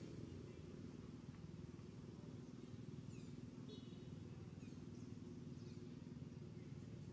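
Quiet outdoor ambience: a steady low hum, with a few faint, high, falling chirps about three to six seconds in.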